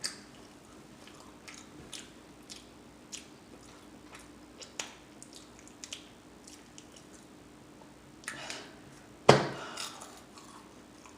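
A person chewing a mouthful of beef and cheese taquito close to the microphone, with soft wet smacking and clicking mouth sounds. There is one sharper, louder smack about nine seconds in.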